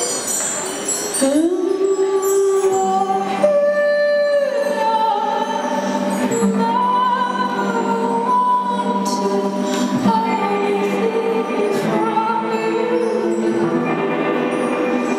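Live rock band performance: a female lead singer holds long sung notes with vibrato over a sustained keyboard chord, with no steady drum beat.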